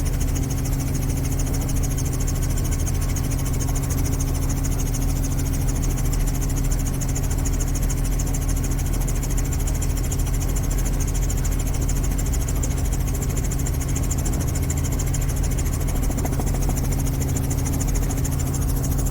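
An engine or motor running steadily: a constant low hum with an even hiss over it.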